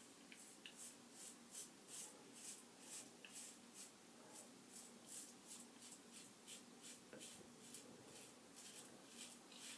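Faint, rhythmic scraping of a safety razor, a 3D-printed Hydra x6, cutting through heavy stubble in short strokes, about two a second.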